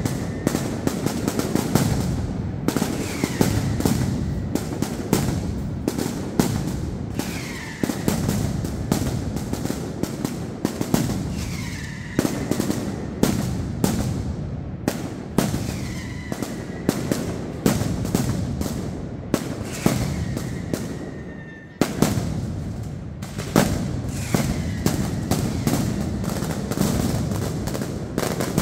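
Mascletà firecrackers going off in a dense, rapid barrage of sharp bangs, with short falling whistles every few seconds. The barrage eases briefly about 21 seconds in, then a loud bang sets it going again.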